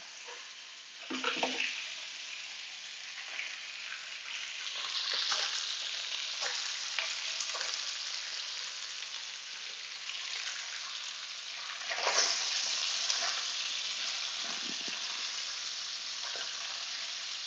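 Pieces of Arctic char sizzling in hot oil in a frying pan: a steady hiss that surges louder about a second in and again about twelve seconds in. Near the end a wooden spatula stirs and turns the pieces in the pan.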